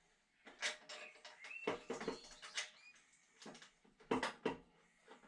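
Small metal parts and tools being handled while fitting bolts on an engine: a run of irregular clinks, scrapes and rattles, busiest about two seconds in and again around four seconds in.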